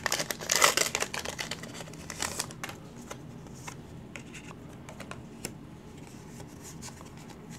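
A Pokémon booster pack's foil wrapper is torn open and crinkles for about the first two and a half seconds. Then come quieter scattered clicks and rustles as the cards are slid out and handled.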